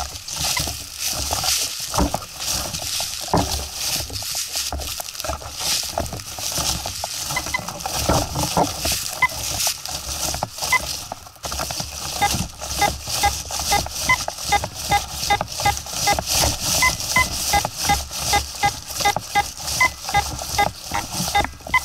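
Dry fallen leaves rustling and crackling under footsteps and the sweeping coil of a metal detector. From about halfway, the steps fall into an even pace of a couple a second, with short high beeps repeating alongside them.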